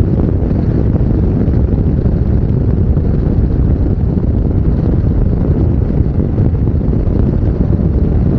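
Steady, loud wind rumble on a lavalier microphone with no wind shield, riding a Yamaha NMAX 155 scooter at highway speed, with the riding noise mixed in.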